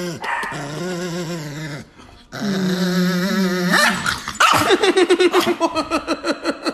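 A Chihuahua growling in two long, wavering spells, then a fast string of short cries, about five a second, over the last couple of seconds.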